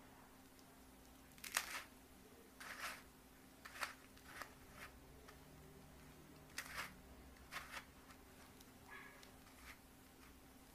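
Plastic megaminx puzzle being turned by hand: short clacks of its layers twisting, about eight or nine turns at irregular intervals, over a faint steady hum.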